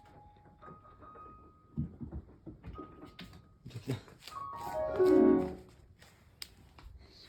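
Soft piano background music playing single held notes. About five seconds in, one drawn-out meow from a munchkin cat, falling in pitch: a low 'naaan'.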